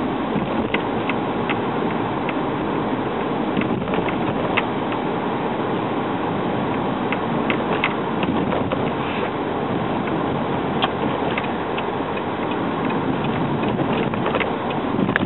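Steady road and engine noise inside the cabin of a 2010 Hyundai Accent GS under way, its 1.6-litre four-cylinder running at cruise, with scattered light ticks and clicks through it.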